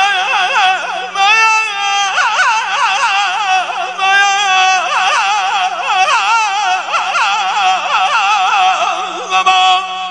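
Wordless mugham vocal ornamentation (tahrir): a singer holds high notes broken by rapid, even throat trills and swooping turns, over a steady low drone. Near the end the voice gives way to held instrumental notes of the accompaniment.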